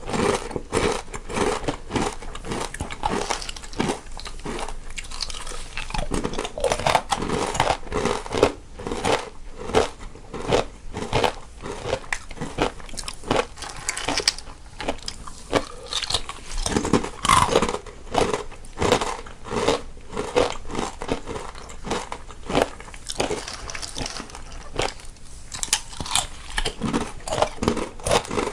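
Two people biting and chewing crunchy snacks close to the microphone, one heard on the left and one on the right, in a continuous run of crisp, irregular crunches.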